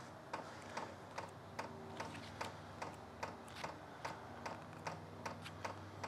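Diesel heater fuel dosing pump ticking at about two and a half clicks a second as it primes fuel on the heater's first start, over a faint steady low hum.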